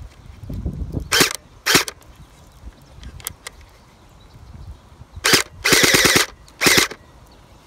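Electric water-bead blaster fired empty: five short bursts of its motor and gearbox cycling, two about a second in and three more between five and seven seconds in, the fourth a half-second rattle.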